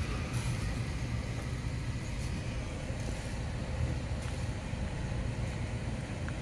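Steady low rumble of motor vehicles, with a few faint small clicks of a cat licking and chewing a creamy treat.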